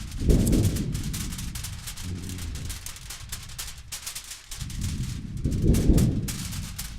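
Foley campfire and thunderstorm: two low rumbles of thunder swell up, one just after the start and another about five and a half seconds in, over a dense, steady crackle of the fire.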